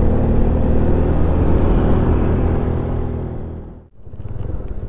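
Honda CB150 motorcycle engine running at a steady speed while riding, with a low rumble underneath. The sound drops away to almost nothing for a moment near the end, then returns.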